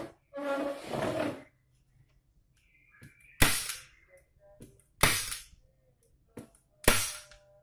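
A short burst of hissing noise, then three sharp strikes about a second and a half to two seconds apart, each ringing briefly.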